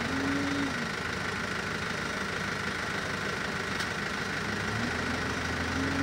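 New Holland backhoe loader's diesel engine running steadily; its pitch drops under a second in and rises again near the end as the throttle comes back up.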